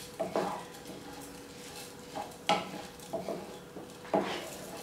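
Wooden spatula stirring and scraping uncooked arborio rice around a non-stick pan, the grains rustling, with irregular sharp scrapes about a second apart. The rice is being coated in the onion moisture, without oil, before the broth goes in.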